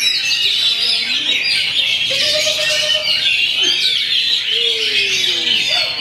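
Oriental magpie-robins (kacer) singing in a dense, unbroken chorus of rapid chirps and trills from many caged songbirds at once. A few lower drawn-out notes slide beneath.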